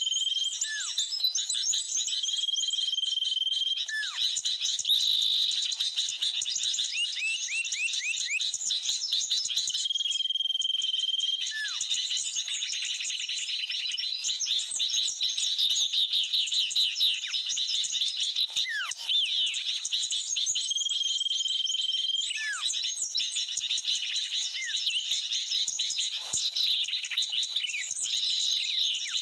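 Bird-lure recording of noisy sooty-headed bulbuls mixed with small birds: a dense, unbroken chatter of chirps and calls. A clear whistle held on one pitch for a second or two sounds four times, and short falling notes are scattered through it.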